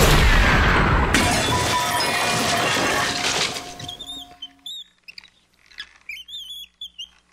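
Cartoon crash sound effect: the tail of a crash, with crumbling, rattling debris noise that dies away over about three and a half seconds. After a near-quiet gap comes a run of short, high, wavering squeaks.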